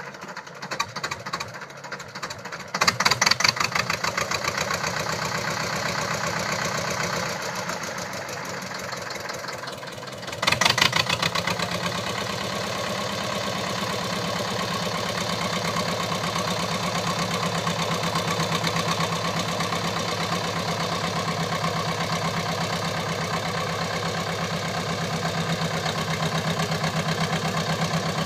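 SAME 250 tractor engine running with a rapid firing pulse. It picks up sharply about three seconds in, eases back, then surges again about ten seconds in before settling into a steady run.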